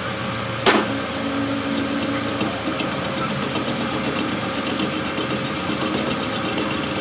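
A single sharp metallic clank about two-thirds of a second in, ringing on for under two seconds, over a steady machine running noise.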